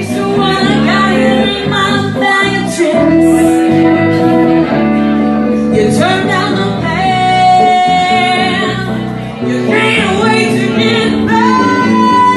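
A woman singing lead over live band accompaniment with guitar, holding long sung notes.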